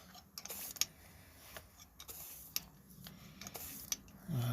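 Hand tap cutting threads into a stripped stud hole in an aluminium engine timing case: a run of irregular clicks and short scraping rasps as the tap is turned and bites into the metal.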